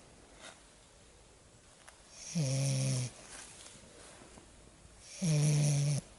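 Lagotto Romagnolo puppy snoring loudly in its sleep: two snores about three seconds apart, each a low buzzing tone lasting under a second.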